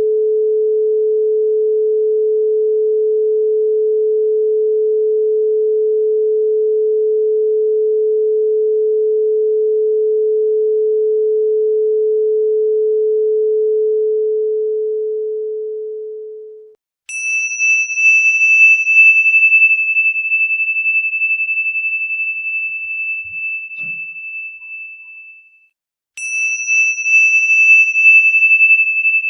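A steady pure tone near 432 Hz, held and then fading out just past halfway. A high bell-like tone is then struck and rings, slowly dying away over several seconds. It is struck a second time near the end.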